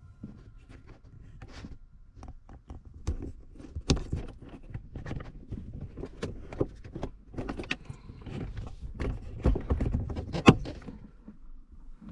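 Irregular clicking, knocking and clattering of a center-console armrest and its mounting plates being handled and fitted into a car interior, with one sharp knock about ten and a half seconds in.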